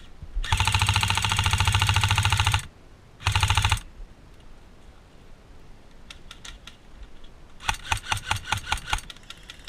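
G&G Raider electric airsoft rifle firing on full auto: one long rattling burst of about two seconds, then a short burst about a second later. Near the end comes a run of about a dozen separate airsoft shots.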